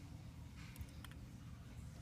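Very quiet room tone with a low hum and a few faint clicks a little under a second in.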